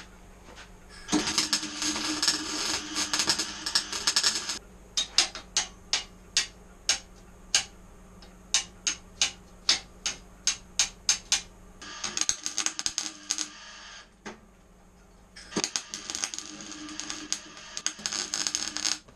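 Stick (arc) welder crackling in three bursts as tack welds are laid. Between the first and second bursts comes a run of sharp metallic taps, about two a second.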